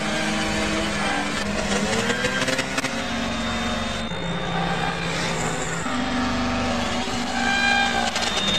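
Sound effect of car traffic: several car engines running and passing, with a few long steady tones layered on top.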